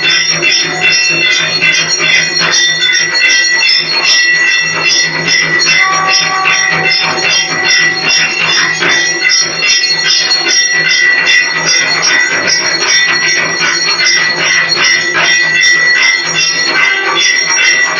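Temple bells ringing continuously over a fast, steady clanging beat of metal percussion, the sound of a Hindu arati in progress.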